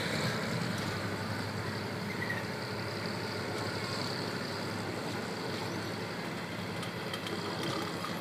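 Passenger train coaches rolling past at speed: a steady rumble of steel wheels on the rails, with a few light clicks near the end.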